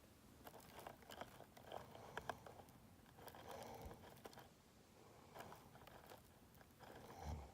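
Congested sleeper's faint breathing, with crackling clicks on the breaths every couple of seconds, a sign of a blocked, mucus-filled nose. A short low snore comes in near the end.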